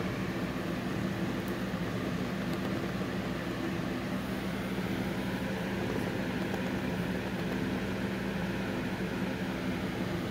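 Steady low mechanical hum with a light hiss, unchanging throughout.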